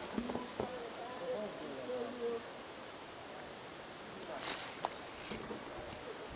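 Insects, crickets or similar, trilling steadily in a continuous high-pitched chorus, with faint distant voices during the first couple of seconds.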